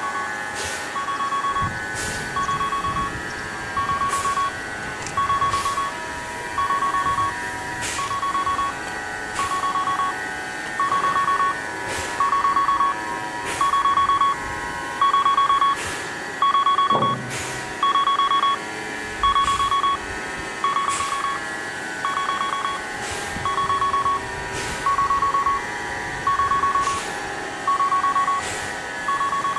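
Railway turntable warning beeper sounding a repeated beep about once a second while the turntable rotates, over a steady hum.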